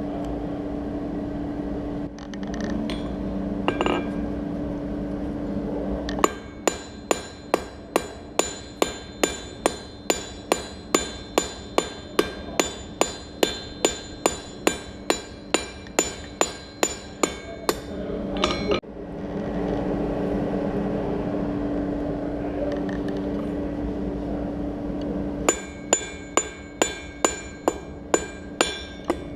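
Blacksmith's hand hammer striking hot steel on an anvil at about two blows a second, each blow ringing bright. The hammering comes in two runs, about six seconds in and again near the end, with a steady low hum filling the stretches before and between.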